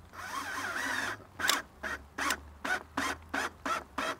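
Makita cordless drill driving a screw into a round wooden pole: a squeaky whir with wavering pitch for about a second. A run of short, evenly spaced squeaks follows, about two or three a second, as the screw is snugged down until it holds.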